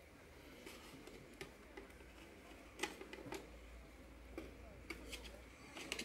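Faint, scattered light clicks and taps of a mechanical keyboard being taken apart by hand: the circuit board is lifted out of the case and set down. The sharpest tap comes about three seconds in.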